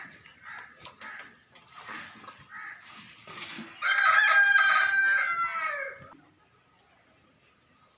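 A rooster crows once, loudly, about four seconds in, the call lasting about two seconds and dropping in pitch at the end. Before it, soft short chicken clucks.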